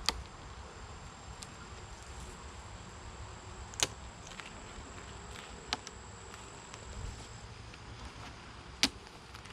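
Four sharp knocks a few seconds apart, with a faint steady high-pitched whine through the middle.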